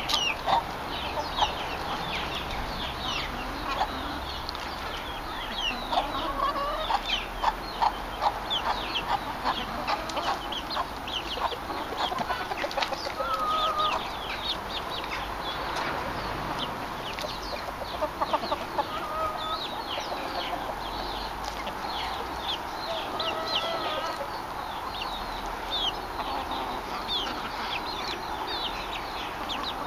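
A flock of hens clucking as they feed, a busy, unbroken stream of short overlapping calls.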